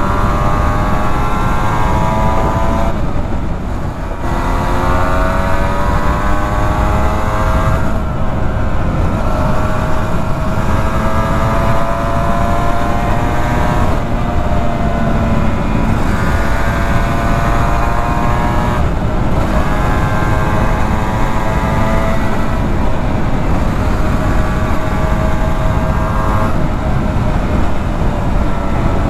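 1991 Suzuki RGV250 VJ22's two-stroke V-twin on Arrow exhausts, pulling through the gears on the road: the pitch climbs in each gear and drops at each of several gear changes, under steady wind rush. The engine is held below about 7,000 revs because it is being run in after a rebuild.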